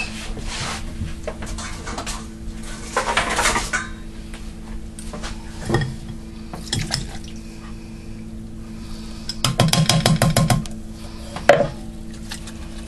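Metal kitchenware being handled: a small mesh strainer and a can of crushed pineapple clink and knock, with a short scraping rush a few seconds in and about a second of rapid rattling near the end, over a low steady hum.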